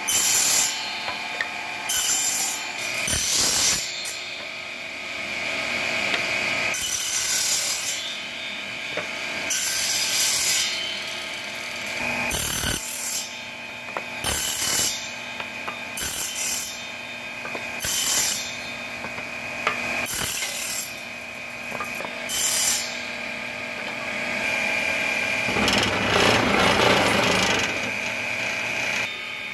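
Table saw running steadily with a whine, its circular blade cutting small pieces of wood in a series of short bursts about every one to two seconds, with one longer cut near the end.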